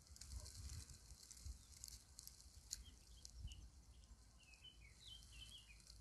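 Near silence with a low wind rumble on the microphone and a faint songbird twittering, a quick run of short chirps in the second half.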